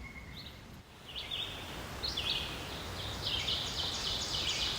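Small birds chirping in short, high, quickly repeated notes, overlapping thickly in the second half, over a steady rush of river water.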